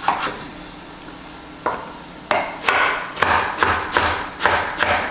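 Kitchen knife dicing carrots on a wooden cutting board. A few scattered knocks come first, then from about halfway a steady run of chopping strokes, roughly two or three a second.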